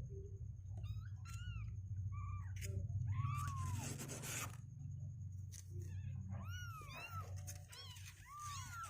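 Two-week-old kittens mewing repeatedly: short calls that rise and fall in pitch, several in quick succession and some overlapping. A steady low hum runs underneath, and there is a brief rustle about three to four seconds in.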